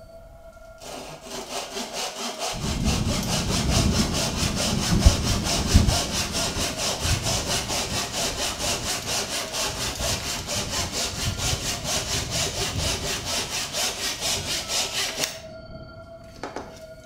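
Hand saw cutting wood in quick, even back-and-forth strokes, about three a second, with a low rubbing rumble and a couple of knocks partway through. It starts about a second in and stops near the end.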